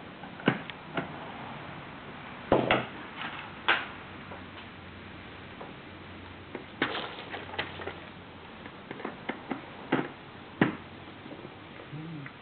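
Irregular clicks and knocks of tools and parts being handled while a humidifier's motor housing is taken apart. A louder knock comes about a fifth of the way in and another near the end.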